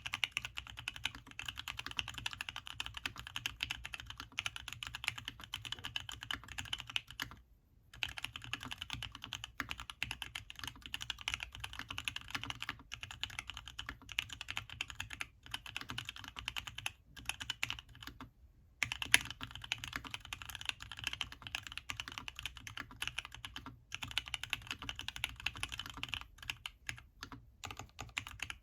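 Typing on an LZ-CLS mechanical keyboard with lubed black Gateron Ink linear switches, a carbon fibre plate, sound dampening material and HammerWorks CRP Desko keycaps: fast, continuous keystrokes, with two brief pauses, about a quarter of the way in and again about two-thirds in.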